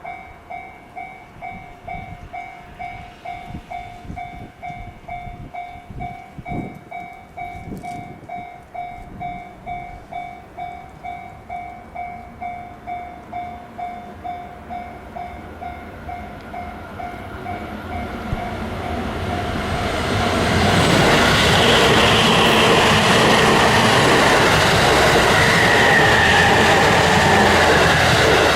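Japanese level-crossing electronic warning bell ringing about twice a second, then an express train passes over the crossing: its noise builds from about 17 seconds in and is loud and steady from about 20 seconds, covering the bell.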